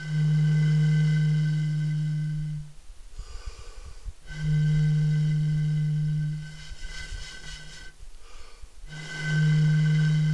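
Music: a low tone held for about two and a half seconds, played three times with short pauses between. It is rich in high overtones, like an ambient drone.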